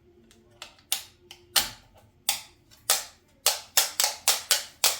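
Rockers of a plastic two-gang light switch clicking sharply, about ten times, spaced out at first and coming faster near the end, as the buttons are clipped on and worked.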